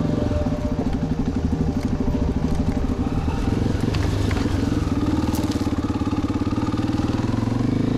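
Single motorcycle engine running steadily with a fast pulsing beat, as the bike is ridden. A few sharp clicks sound about four and five seconds in.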